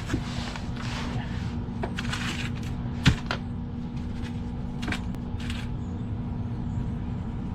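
Scattered handling noises, short scrapes and rustles with a sharp knock about three seconds in, over a steady low hum.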